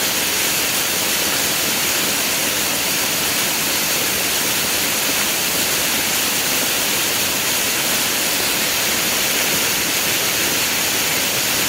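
Waterfall, heard from directly above: a steady, unbroken rush of falling water.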